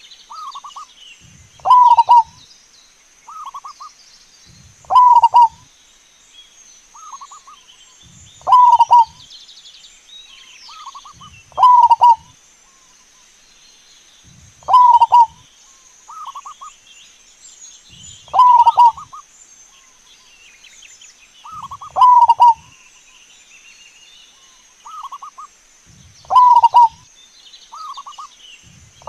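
Wild zebra dove (perkutut) cooing over and over, a loud phrase about every three to four seconds with softer coos between. Faint chirping of other small birds and a steady high-pitched whine run underneath.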